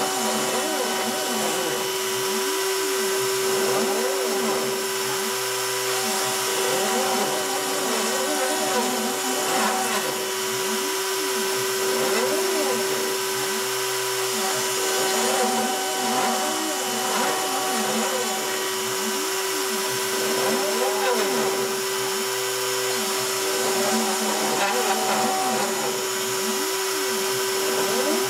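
A CNC machine cutting cardboard. The rotary-tool spindle spins with a steady whine, and the stepper motors whine in repeated rising and falling arcs as the axes speed up and slow down along the toolpath.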